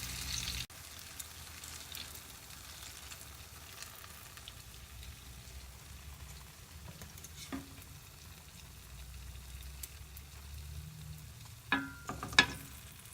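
Banana turon, sugared banana in spring roll wrappers, sizzling in hot frying oil as the sugar caramelises. The sizzle drops suddenly quieter under a second in, and a few sharp clicks come in the second half.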